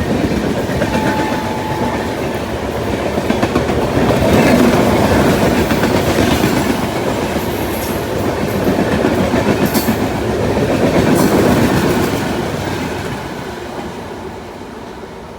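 Express passenger train passing at speed, its coach wheels clattering rapidly over the rails, fading away over the last few seconds.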